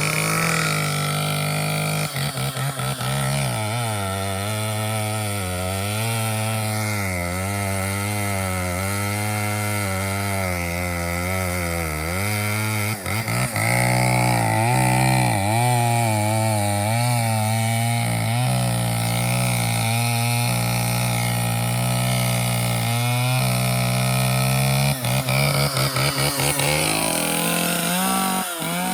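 Old Echo 650 EVL two-stroke chainsaw running at high throttle on its normal fuel, its pitch wavering up and down as it is run hard to get the engine hot. It runs louder and higher from about halfway, then goes choppy near the end.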